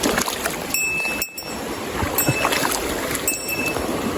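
Rushing stream water: a steady, even noise with two brief dips, about a second in and again near the end.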